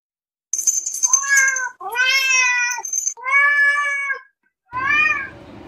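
A domestic cat meowing four times: three drawn-out meows and a shorter last one, each rising and falling in pitch.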